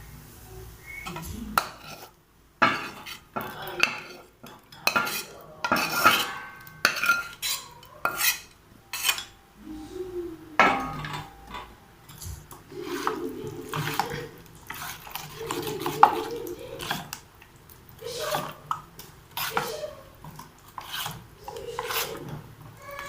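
A spoon clattering and scraping against a kadai and a bowl as sautéed vegetables are tipped into wheat flour batter and stirred in, with many irregular clinks and knocks.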